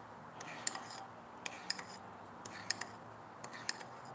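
Spoon stirring thick barbecue sauce in a bowl, giving several faint, irregular clicks as it touches the bowl's side.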